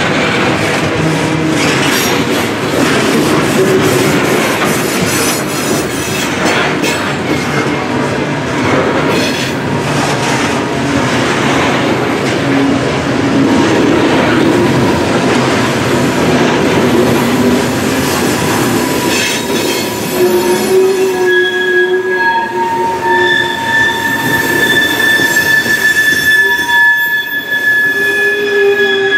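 Norfolk Southern coal hopper cars rolling past close by: a steady rumble and clatter of steel wheels on the rails. From about two-thirds of the way in, the wheels give off high, steady squeals at several pitches.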